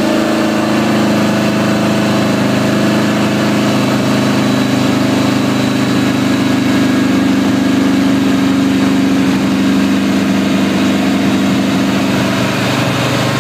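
Yamaha VMax Gen II's V4 engine running at a steady held speed under load on a dynamometer, kept there by an electronic cruise control that opens the throttle as the load rises. The pitch stays level throughout, and the sound eases slightly near the end.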